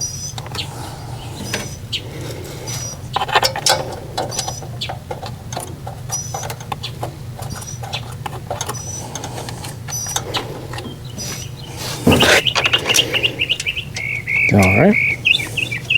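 Light metallic clicks and ticks of bolts being threaded in by hand on a generator engine, over a steady low hum. Birds chirp in short calls throughout, and a louder run of chirping starts about twelve seconds in.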